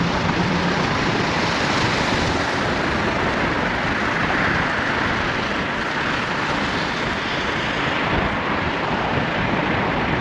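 Steady road noise of a vehicle driving along a rain-wet street, its tyres hissing on the wet pavement.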